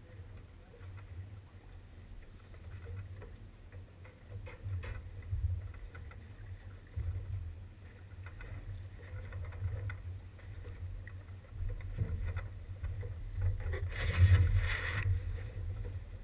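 Noise aboard a small fishing boat: a steady low rumble with scattered knocks and clicks, and a brief rush of noise a little before the end, the loudest moment.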